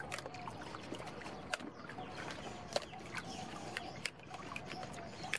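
Water splashing and dripping in a tub as heads of cos lettuce are swished and rinsed by hand, with many short sharp splashes and drips. A faint wavering call sounds in the background.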